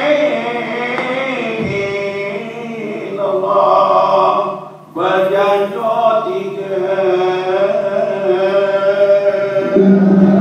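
Voices chanting a melodic verse as accompaniment to the traditional Malay Dabus dance, breaking off briefly about halfway and then resuming. A low steady note comes in near the end.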